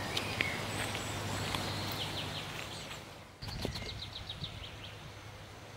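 Small birds chirping over steady outdoor background noise with a low hum. About three and a half seconds in the background changes abruptly, and a quick run of chirps follows.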